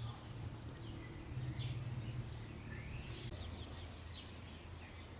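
Faint outdoor ambience: scattered bird chirps and short whistled calls over a steady low rumble.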